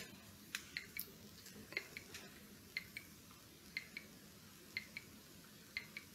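Faint clock ticking: a quick double tick repeating evenly once a second.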